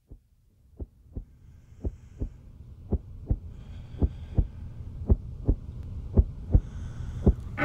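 A slow heartbeat: paired low lub-dub thumps, one pair a little over every second, over a low hum that swells up gradually. There is faint airy hiss now and then.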